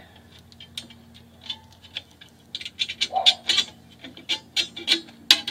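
A screwdriver clicking and scraping against the steel bottom return spring and brake shoes of a drum brake, a quick irregular run of sharp metal clicks that starts about halfway through.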